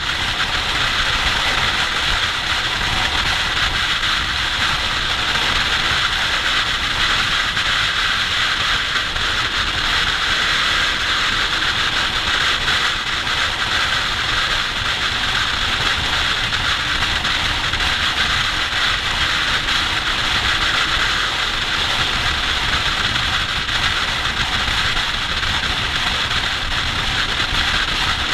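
Steady wind rush over a motorcycle-mounted camera at motorway speed, with the motorcycle's engine running underneath at constant speed.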